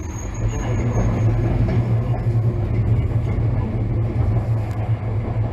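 Kagoshima City tram running along street track, heard from inside the car: a steady low rumble of the wheels rolling on the rails. A faint high whine fades out about a second and a half in.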